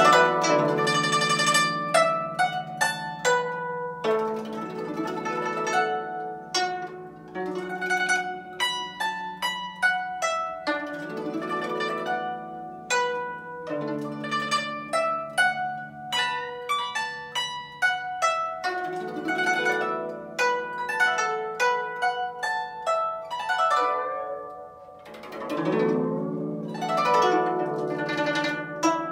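Guzheng played solo: a quick stream of plucked notes over ringing low strings, with a sweeping glissando across the strings about twenty-five seconds in.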